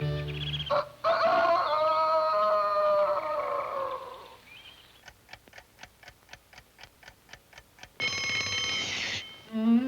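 A short stretch of cartoon-score music, then a mechanical clock ticking evenly, about four or five ticks a second, then an alarm clock bell ringing loudly for about a second and cutting off.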